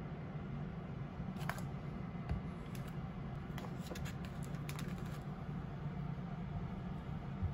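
Light clicks and taps of vegetables and plastic food packs being set down on a wooden cutting board, a scatter of them through the middle of the stretch, over a steady low hum.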